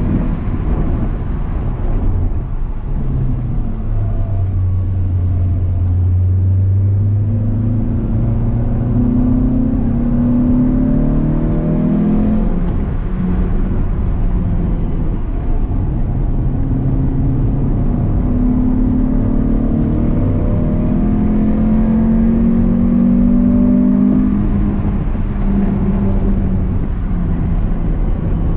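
Renault Clio 182's 2.0-litre four-cylinder engine heard from inside the cabin while driven hard, its note rising in pitch under acceleration and dropping back several times, over steady tyre and road rumble.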